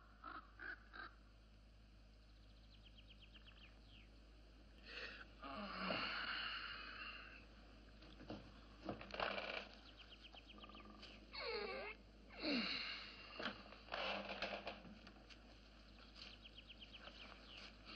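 A sleeping man snoring, with wheezing, whistling snores that sweep down and up in pitch in two loud spells, about five and twelve seconds in. Birds chirp and trill in the forest around him.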